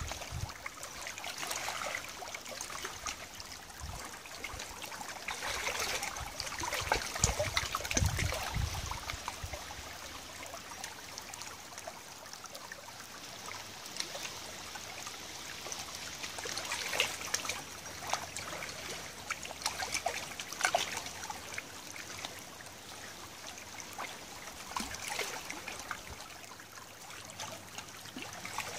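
Shallow tidal river water trickling and lapping over a pebbly bank, with many small ticks and splashes. A brief low rumble comes in about a quarter of the way through.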